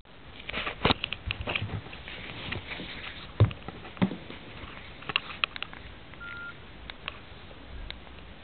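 Clicks and knocks of a Nokia 5130 mobile phone being handled and its keys pressed, with one short beep about six seconds in.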